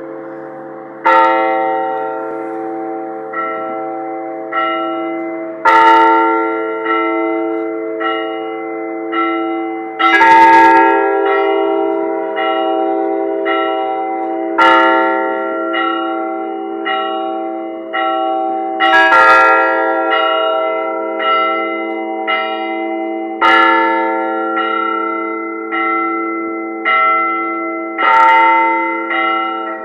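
Russian church bell ringing on the podzvonnye (middle) bells: a bell ringer strikes a steady rhythmic peal, one stroke every half second to a second, with the tones ringing on and overlapping. A louder, fuller accent stroke comes back about every four and a half seconds.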